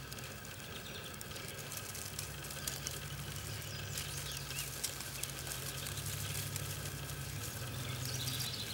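Quiet outdoor ambience: faint bird chirps over a low steady hum, with scattered light clicks.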